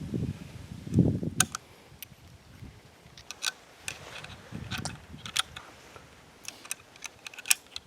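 Handling noise: a scatter of short, sharp clicks and light rubbing from gear being handled close to the microphone, with a couple of low thumps in the first second and one louder click near the end.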